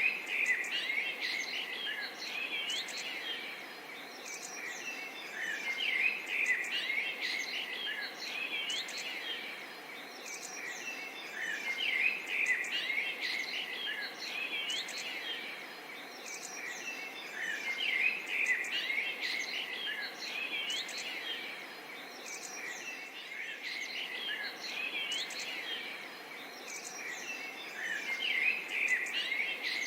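Birds chirping and singing in quick, high calls that swell in bursts about every six seconds, over a steady background hiss of forest ambience.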